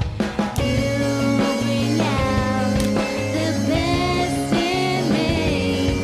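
Rock song with a singing voice over bass and drums.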